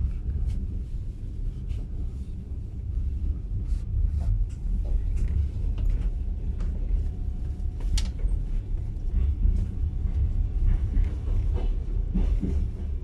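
Steady low rumble of a moving passenger train heard from inside the carriage, with a few light clicks and knocks and one sharp click about eight seconds in.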